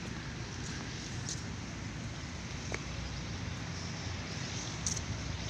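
Steady low outdoor rumble with a few faint ticks and one sharper click about halfway through.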